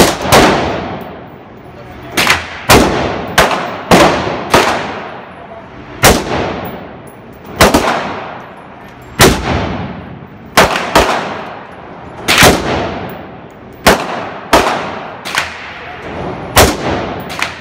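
AR-style rifle fired semi-automatically on an indoor range: about twenty loud, sharp shots at an uneven pace, some in quick pairs and triples, others a second or more apart, each followed by a long ringing echo off the range walls.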